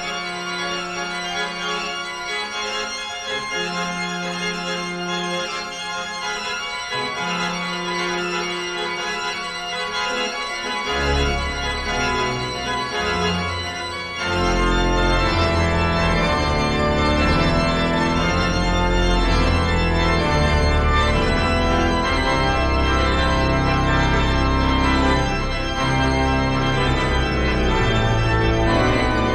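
Instrumental background music of held keyboard chords. A bass line comes in about eleven seconds in, and the music turns fuller and louder about three seconds later.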